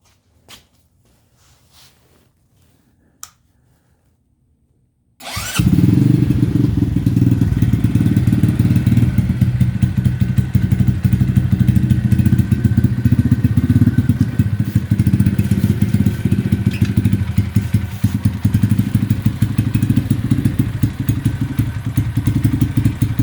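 A few faint clicks, then about five seconds in the SSR Razkull 125 pit bike's single-cylinder four-stroke engine starts through its aftermarket exhaust and settles into a steady idle. The idle sits a little below the roughly 1500 RPM these engines like.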